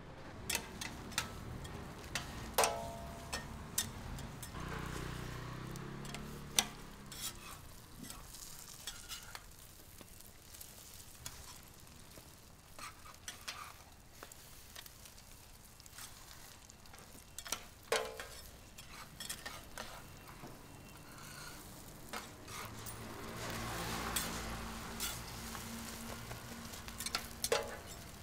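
Flour-batter vegetable egg pancake sizzling on a steel flat-top griddle while metal spatulas scrape and tap on the steel, with sharp clicks throughout and a few ringing metal clinks.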